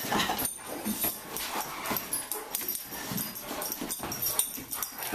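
A Doberman pinscher playing tug on a rope toy: the dog's play noises and its claws scrabbling on a hardwood floor, in irregular bursts with sharp clicks.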